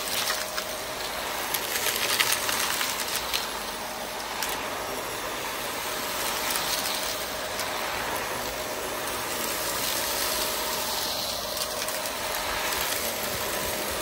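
Vax Air Lift Drive Plus upright vacuum cleaner running on artificial grass, a steady rushing noise with a constant high motor tone. Scattered clicks of grit and debris being sucked up, mostly in the first few seconds.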